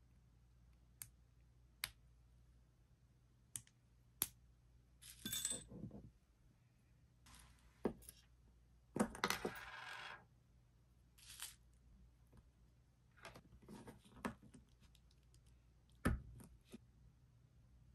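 Small metallic clicks and clinks as the aluminium crimp seal is torn off a glass serum vial and the vial is opened, with short scraping rustles; the longest, about nine seconds in, lasts around a second.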